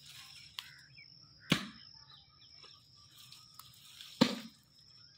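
A steady high-pitched insect trill continues throughout. Two sharp knocks, about a second and a half and four seconds in, are the loudest sounds, with faint handling noise as the saplings are moved.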